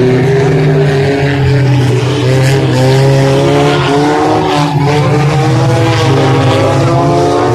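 Engines of several banger-racing 4x4s running and revving as they drive round the track, their pitches rising and falling over one another.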